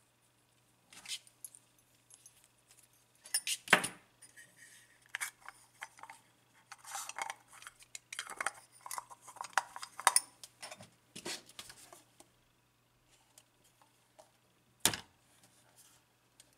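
Handling noise from a Kiev 60 medium-format camera body and its accessories: irregular clicks, clinks and rubbing of metal and plastic parts, with a sharp knock about four seconds in and another near the end.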